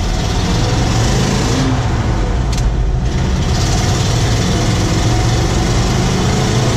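The Ford 361 V8 of a 1974 Ford F600 grain truck, fed by a Holley 850 carburettor, running steadily as the truck drives along. It is heard from inside the cab, with road and wind noise.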